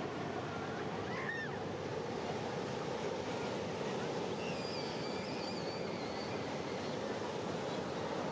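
Steady rushing noise of ocean surf and wind at a beach, with a faint wavering high whistle around the middle.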